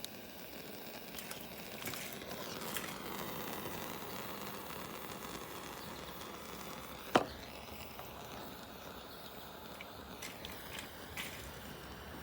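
Steady hiss from a heat tool shrinking heat-shrink tubing over soldered wire splices, with one sharp click about seven seconds in.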